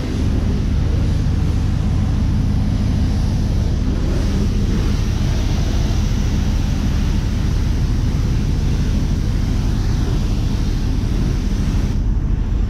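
Self-serve car wash high-pressure wand spraying water onto a car: a steady hiss over a continuous low hum.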